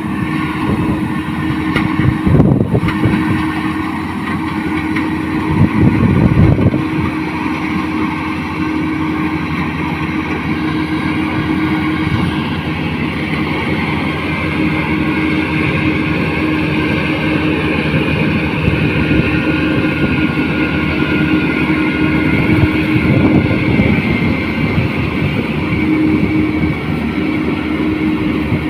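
Rice combine harvester running steadily under work: a constant engine and machinery drone with a held tone through it.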